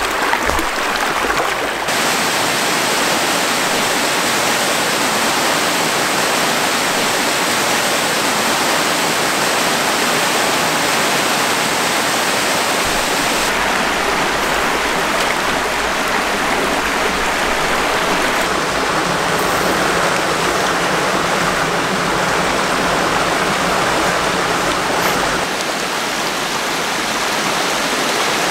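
Small mountain creek rushing over rocks and riffles: a steady, loud rush of water whose tone shifts a few times.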